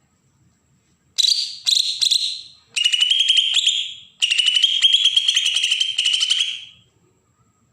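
Kalimantan cucak ijo (green leafbird) giving harsh, rasping 'besetan' calls: four scratchy, rapidly pulsed bursts starting about a second in, the last one long. This is the aggressive rasping call used to provoke and lure young birds.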